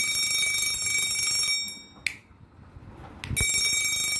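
Homemade electric bell: a small DC motor drives a striker against a metal bowl used as the gong, which rings with a steady high, buzzing ring. The ringing dies away and the push switch clicks about two seconds in, then after a short quiet the switch clicks again and the ringing starts once more.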